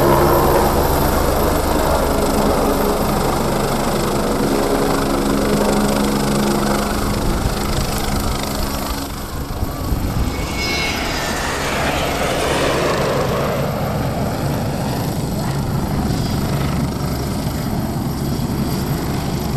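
Aircraft engine noise: a loud, steady roar with a low droning hum, and a whining tone that sweeps down in pitch about ten seconds in.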